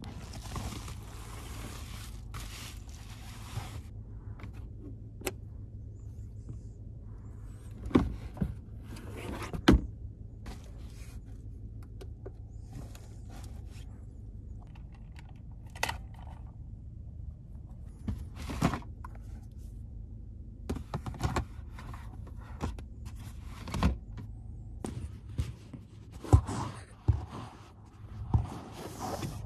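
Items being handled and shifted around inside a car: rustling with scattered thunks and knocks, a few of them sharper and louder, over a steady low rumble.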